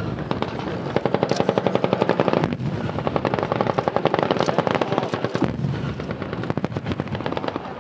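Sustained machine-gun fire in long rapid bursts of about ten shots a second, with a brief gap about two and a half seconds in and weaker, more scattered fire after about five and a half seconds.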